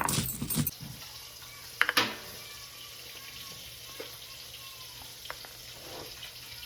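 Kitchen clatter: a quick run of clicks and knocks at the start, a loud clank about two seconds in, then a soft steady hiss with a few light taps.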